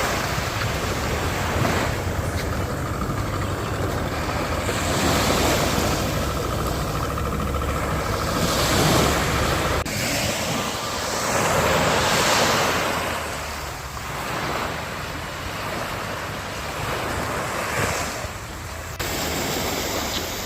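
Sea waves washing onto a shore, swelling and falling every few seconds, with wind rumbling on the microphone. The sound changes abruptly about halfway through and again near the end.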